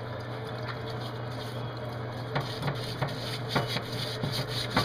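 Scrubbing and rubbing on a greasy wheel hub bearing assembly as it is cleaned, with a few sharp metal clicks in the second half, over a steady low hum.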